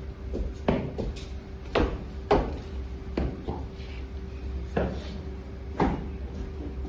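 Soldiers' drill on a hard floor: a series of about eight sharp stamps and knocks, irregularly spaced, over a steady low hum.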